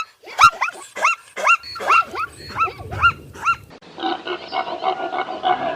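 An animal calling over and over, about two short calls a second, each rising then falling in pitch. The calls stop abruptly about four seconds in, and a denser, steadier mix of sound takes over.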